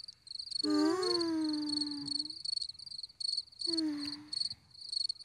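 Crickets chirping in quick, even pulses, a night-time sound effect. Twice a lower tone slides downward under the chirping, the first long and the second short.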